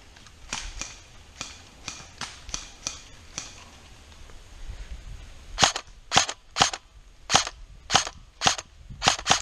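Airsoft rifle firing single shots: a run of fainter sharp cracks in the first few seconds, then, from about halfway through, eight louder shots at roughly two a second.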